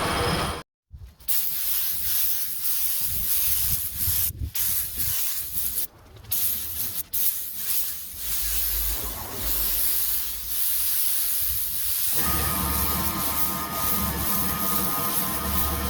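Compressed-air paint spray gun hissing in passes, broken by abrupt cuts. About twelve seconds in, a steadier humming sound with a low drone takes over.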